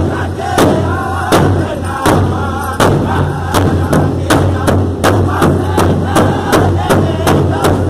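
Powwow big drum struck in unison by a circle of drummers with drumsticks, each stroke a hard thump, under the group's singing. The beat quickens about three seconds in.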